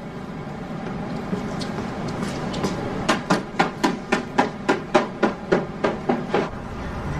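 A rapid, even run of about a dozen sharp knocks, about four a second, starting about three seconds in, over a low steady background.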